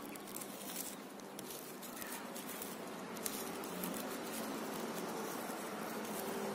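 Clear plastic grafting tape crinkling and rustling in the fingers as it is wrapped around a bonsai stem graft, over a steady low hum that grows louder near the end.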